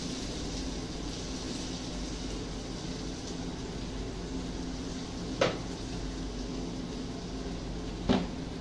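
A frying pan is handled as cooked longganiza sausage is slid from it onto a burger bun, giving two sharp knocks, one about five seconds in and one near the end, over a steady kitchen hum and hiss.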